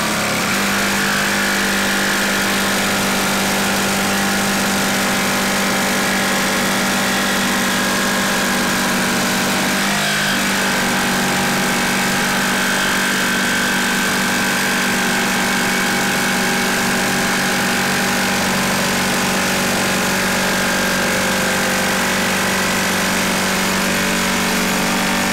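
Ryobi 18V brushless jigsaw sawing lengthwise along a wooden board, running steadily at an even pitch for a long continuous cut.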